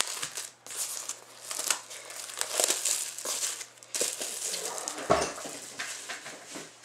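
Clear plastic shrink wrap being peeled off a trading-card box and crumpled, crackling in irregular bursts, with a dull knock about five seconds in.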